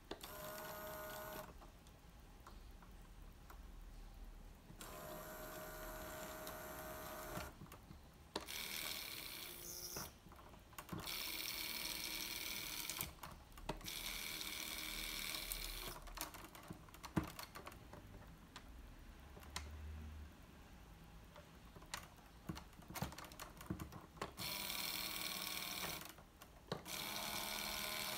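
Electric motors and gear trains of a LEGO Technic helicopter model whirring in about seven separate runs of one to three seconds as a programmed sequence tilts the model and turns its rotors, with short clicks in the pauses between runs.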